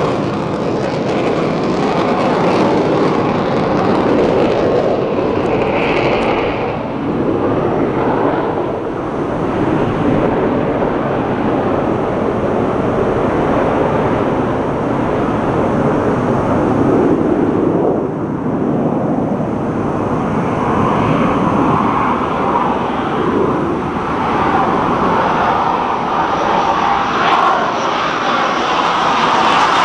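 Loud, continuous jet noise from navy jet aircraft, swelling and easing slightly but never letting up.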